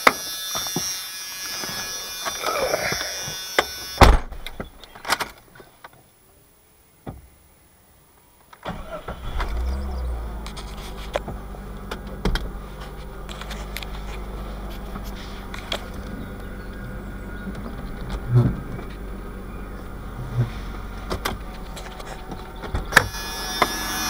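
Door and seat handling noises with a sharp click, then a Jeep Cherokee XJ's 4.0-litre straight-six is started about nine seconds in and settles to a steady idle, its loose flexplate bolts now tightened with thread locker.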